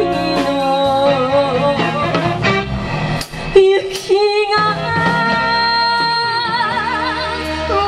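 Live band with a female vocalist singing a slow song, backed by electric guitars and drums. About halfway through, a sharp band accent and a short break. Near the end, the singer holds long notes with a wide vibrato.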